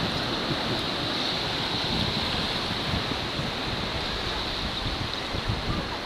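Small waves washing onto the beach, mixed with wind on the microphone: a steady, even rush.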